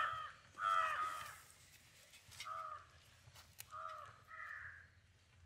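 A crow cawing repeatedly, about five harsh caws, each fainter than the one before.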